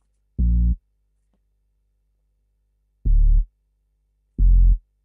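Soloed bass line played from a Native Instruments Maschine Studio beat: three short, deep bass notes with silence between. The first comes near the start, and two more follow about a second and a half apart near the end.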